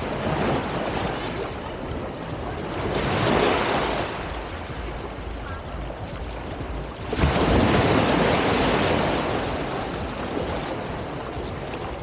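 Sea surf breaking and washing up on the beach: a steady rush of water that swells three times, the strongest surge coming suddenly about seven seconds in.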